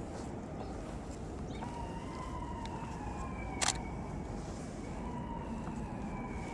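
Distant emergency-vehicle siren wailing, its pitch sliding slowly down in two long sweeps, over steady wind noise. A single sharp click comes about midway.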